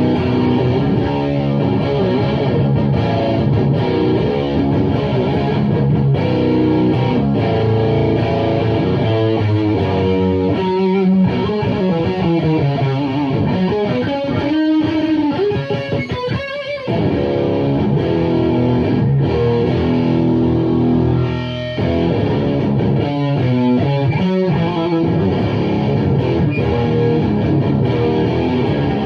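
Electric guitar played through an Ibanez Powerlead PL5 distortion pedal into a Laney AOR 50 valve amp and an Orange 4x12 cab with Celestion Vintage 30 speakers: distorted chords, with single-note lead lines and bent notes midway, then chords again.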